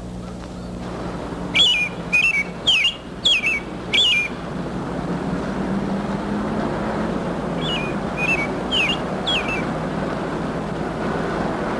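A small bird chirping in short, quick, falling chirps: a run of five about a second and a half in, and four more near the end, over a steady background hiss that grows louder partway through.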